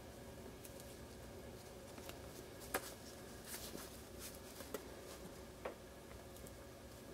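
Faint handling noises of a small carbon-fibre micro quadcopter frame with foam-wrapped 6mm motors being turned in the hands: a few light clicks and taps, the sharpest a little under three seconds in, with soft rustles between them.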